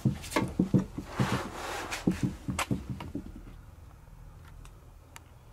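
Quick run of dull knocks with scraping as the metal CCTV recorder box is handled and shifted, dying down after about three seconds to a few faint clicks.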